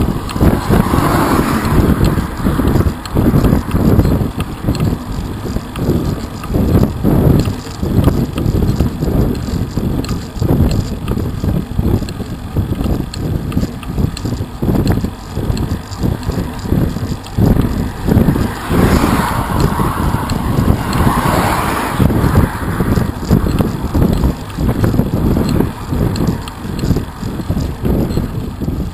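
Wind buffeting the microphone of a bicycle-mounted camera while riding, a steady gusty rumble with road noise. A car passes by about a second in, and another vehicle swells past about two-thirds of the way through.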